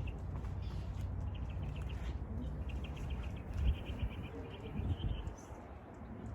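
High, rapid chirping from a small animal in several short runs of quick pulses, over a steady low rumble, with a low thump about halfway through.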